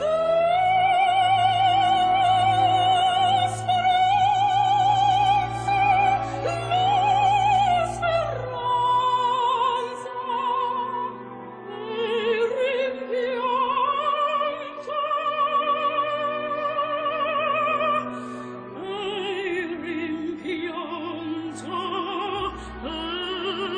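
Operatic singing: long held notes with a strong, even vibrato over a sustained low accompaniment.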